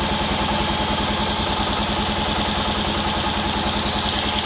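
Stels ATV 600 Dinli's liquid-cooled single-cylinder engine idling steadily in neutral, with the electric radiator fan running after the engine reached its switch-on temperature: the cooling system working after the radiator relocation.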